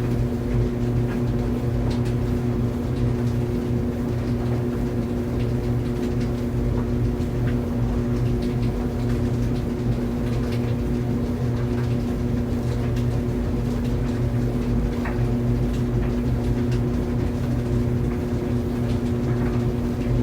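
Laundry clothes dryer running: a steady, even motor hum with a constant rumble, and faint light clicks scattered throughout.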